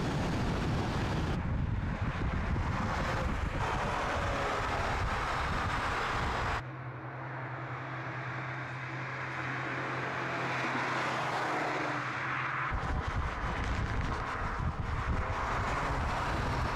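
VW Golf R Mk8.5's turbocharged 2.0-litre four-cylinder engine running at speed, with tyre and wind rush, heard in several cut-together shots. In the middle stretch it drops to a quieter, steady low drone while the car is far off.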